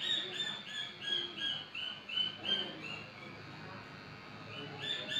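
A rapid series of short, clear, high animal calls, about three a second, each note a little lower than the one before. The calls stop a little under three seconds in and start again near the end.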